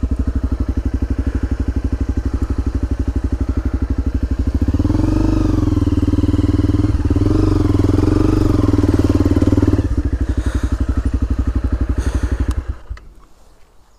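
Honda dirt bike engine idling with a steady, rapid beat, revved up and down and ridden slowly for about five seconds in the middle, then idling again before it is switched off near the end.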